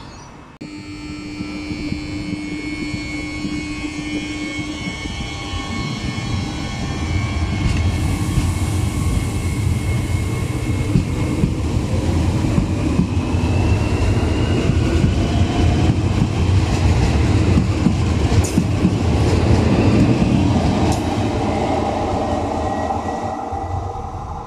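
Régio2N double-deck electric regional train running past and pulling away, its wheels rumbling on the rails and its traction motors giving a whine that rises in pitch. The rumble builds to a peak late on, with a couple of sharp clicks from the wheels, then fades.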